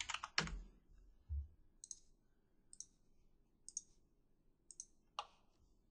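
Faint computer keyboard keystrokes at the start, then single sharp mouse clicks about once a second.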